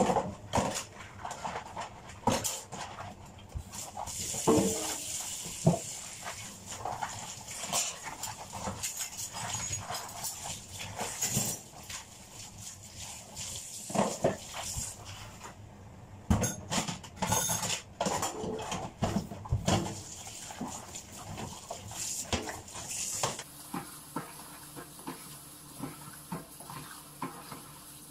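Dishes and pots being washed by hand in a kitchen sink, knocking and clattering irregularly. Near the end the tap is turned on and water runs steadily.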